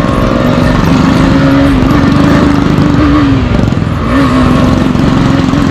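KTM 390 single-cylinder motorcycle engine running at a steady cruising pace. Its note sags slightly a little past halfway and picks up again with a touch of throttle.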